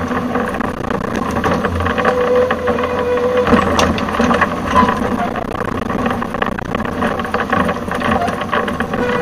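Wacker Neuson 28Z3 mini excavator's diesel engine running while its hydraulic breaker hammers concrete, a steady engine drone under a dense rattle of rapid blows.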